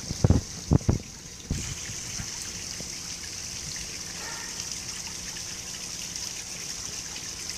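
Small garden waterfall trickling and splashing steadily over stacked stones into a pond. A few loud dull thumps in the first second and a half, then the water grows a little louder.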